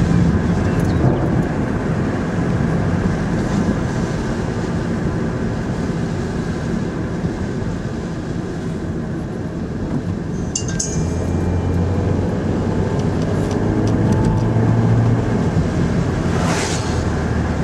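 Car in motion heard from inside the cabin: steady engine and road noise with a low hum that comes and goes. A few brief high clicks about ten seconds in, and a short rushing swell near the end.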